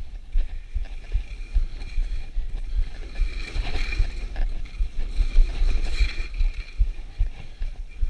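Wind buffeting the microphone of an action camera carried by a skier going downhill, a constant fluttering rumble, with the hiss of skis sliding over snow that swells a little before four seconds in and again about six seconds in.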